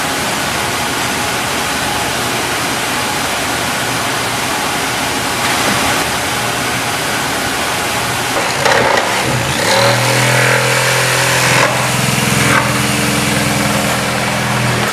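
Steady, loud factory machinery noise. About nine or ten seconds in, a machine's low steady hum starts up under it, with a few knocks, and the sound cuts off abruptly at the end.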